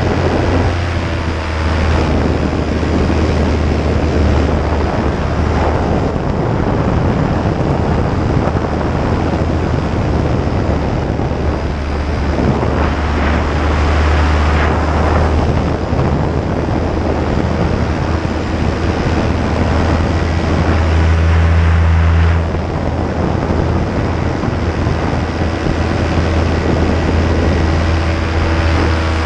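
Paramotor engine and propeller running steadily in flight, with wind rushing over the microphone. The engine note swells briefly about twenty seconds in, then drops back.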